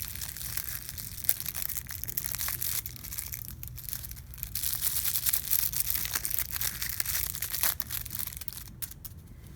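Crinkle ball crackling and rustling as a cat paws at it, a dense run of small crinkling clicks that thins out near the end.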